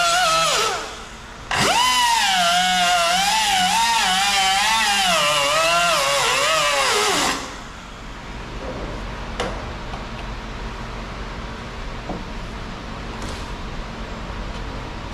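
Pneumatic cut-off tool whining as it cuts through the sheet metal of a truck's rocker panel, its pitch wavering as the wheel is loaded. It drops out briefly about a second in, runs again for about six seconds, then stops suddenly, leaving a low steady shop background.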